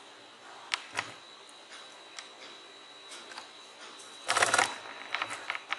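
Handling sounds of a metal-backed TV backlight LED strip on a wooden bench: a few light clicks, then a brief clattering burst of clicks about four and a half seconds in, followed by a few more taps.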